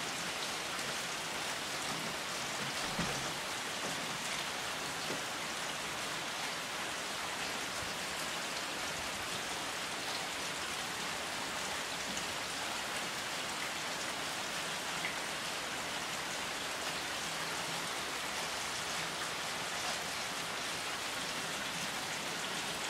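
Steady rain falling: an even, unbroken hiss with a few faint drop ticks.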